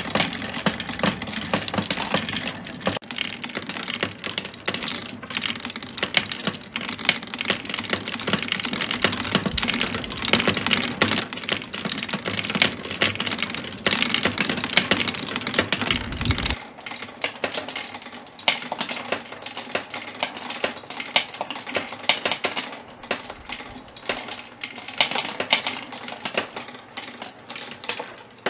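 Glass marbles clicking and rattling through a wooden marble machine: a dense, fast run of small clacks as they roll along wooden tracks, swirl in a wooden bowl and ride the wooden gear-wheel lifters. A low hum runs under the clicking for the first half and stops abruptly a little past the middle.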